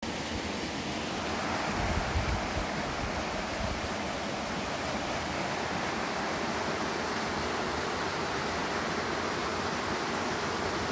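Steady rushing noise, with a few low thumps about two seconds in.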